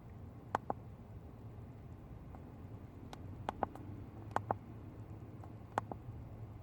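Four pairs of short, sharp clicks, each pair a quick double click, spread over a few seconds above a low steady hum.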